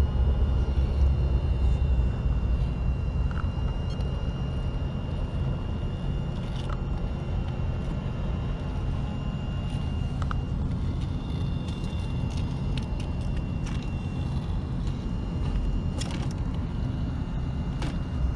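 Electric RC rock crawler working slowly over rock: a faint steady motor whine, with a few sharp clicks and knocks. Under it runs a steady low rumble, loudest near the start.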